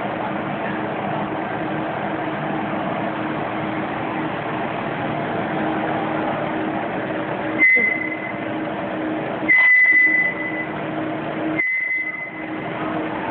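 Blown film extrusion line running with a steady machine hum. Three short, high beeps sound over it in the last few seconds; the second is the longest and loudest.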